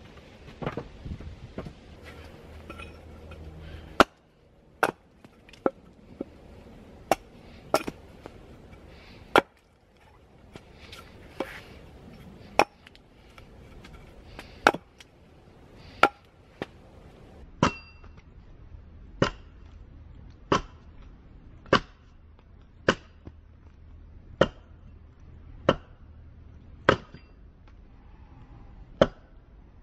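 Hatchet chopping down a thin wooden pole stood on a chopping stump, trimming off knots and twigs: a string of sharp chops, irregular at first, then settling into a steady pace of about one a second, some strikes ringing briefly.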